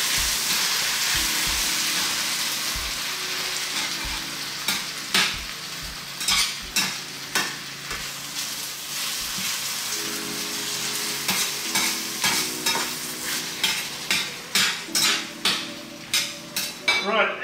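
Tomatoes, green peppers and onions sizzling in a stainless steel frying pan while being stirred, with irregular clicks and scrapes of the stirring utensil against the pan that come more often in the second half.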